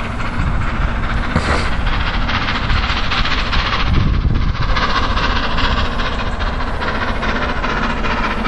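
LNER K4 three-cylinder steam locomotive working hard as it approaches, its exhaust beats coming fast and close together over a steady low rumble.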